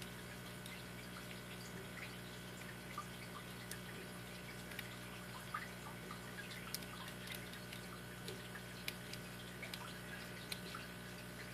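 Sparse, irregular small metallic clicks of a lock pick working the pin tumblers of a brass 5-pin padlock, over a steady low hum.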